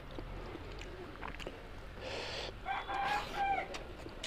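A rooster crowing once, a held call of about a second near two-thirds of the way in, over small clicks of eating and chewing.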